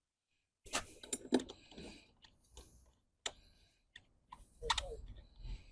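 Irregular light clicks and knocks of hand handling, with a few louder clatters about a second in and near the end, as the lawn mower and its parts are moved after the new blade is fitted.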